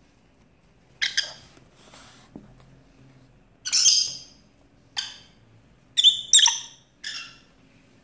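Pet lovebird giving about seven short, shrill calls at irregular intervals, the loudest near the middle and a quick double call about two-thirds of the way through.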